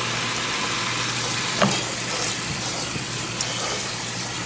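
Kitchen faucet sprayer running a steady stream of water onto soaked pinto beans in a stainless-steel colander in a stainless-steel sink, a continuous rush and spatter of water, with a light knock about one and a half seconds in.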